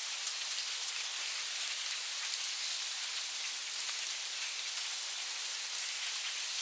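Steady rain falling on forest leaves: an even hiss flecked with many small drop ticks.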